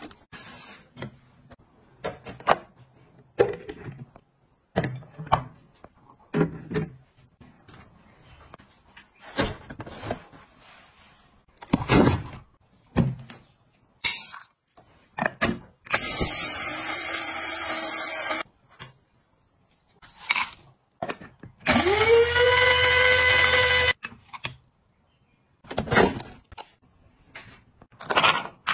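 Cardboard box being handled and opened, with scattered taps and rustles. Then a small electric grinder with rice in it runs twice, about two seconds each: first with a rushing noise, then with a motor whine that rises quickly and holds steady.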